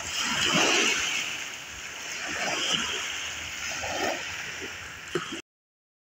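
Small sea waves lapping and sloshing at the shallow water's edge, swelling and easing every second or two. The sound cuts off suddenly about five seconds in.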